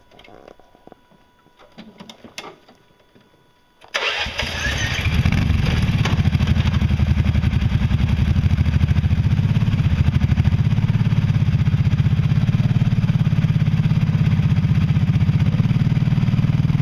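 A few faint clicks, then about four seconds in an ATV engine starts and runs steadily with an even, rapid firing pulse.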